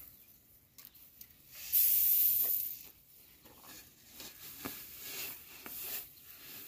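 Rice grains poured into a woven plastic sack: a loud, hissing pour of grain about two seconds in, lasting about a second, with fainter rustling of the sack around it.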